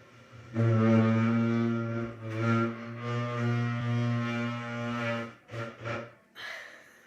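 A chair making a long, low, steady-pitched creak much like a horn note, lasting about four and a half seconds with a brief break partway through, followed by two short creaks.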